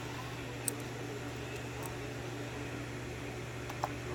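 Steady low mechanical hum, with two faint light clicks, one about a second in and one near the end.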